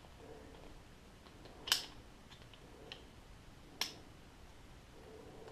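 Small, sharp metal clicks from a Sig P938 pistol as its slide is drawn back during reassembly: two distinct clicks about two seconds apart, with a faint tick between them.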